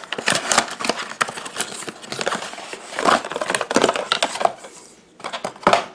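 Thin cardboard light-bulb carton being opened by hand and the bulb slid out: irregular rustling, scraping and tapping of the cardboard, easing off after about four and a half seconds, with one more short scrape near the end.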